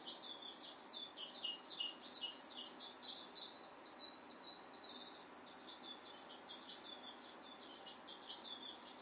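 Eurasian skylark singing: a long, unbroken run of quick, high, warbling chirps.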